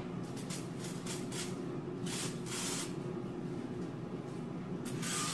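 Misto pump oil sprayer misting cooking oil onto frying pans in several short, uneven hisses, then a longer spray near the end. It is not spraying out right, which the owner puts down to the sprayer acting up and needing a clean-out.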